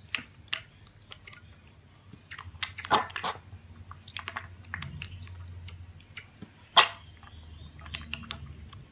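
A piglet slurping and lapping milk from a stainless steel bowl: irregular wet smacks and clicks, the loudest about three seconds in and again near seven seconds.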